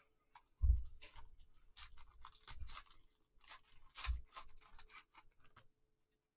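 Foil trading-card pack wrappers crinkling and tearing as the packs are pulled open by gloved hands, in a run of rustling crackles with a few dull knocks. The loudest knock comes about half a second in, and the rustling stops shortly before the end.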